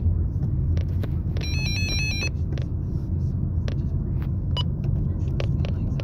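A steady low rumble runs under clicks of buttons being pressed on a Midland WR100 weather alert radio. About a second and a half in, the radio gives a short run of high electronic beeps that step up and down in pitch.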